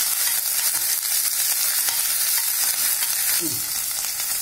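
Chopped garlic, ginger and crushed fennel sizzling steadily in hot oil in a stainless steel pressure cooker, stirred with a perforated metal ladle that scrapes and clicks against the pot.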